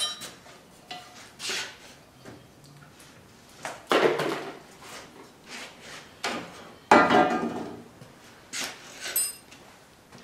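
Metal parts and hand tools clanking and knocking as a tool and cutter grinder is taken apart by hand. There are several separate clanks, the two loudest about four and seven seconds in.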